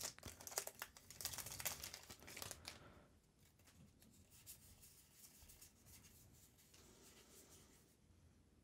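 Foil wrapper of a Magic: The Gathering booster pack crinkling and tearing open in a rapid run of crackles, which stops about three seconds in, leaving near silence.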